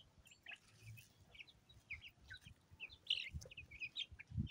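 Young chickens peeping in short, high chirps as they feed, the calls coming thicker in the second half, with a couple of dull low bumps near the end.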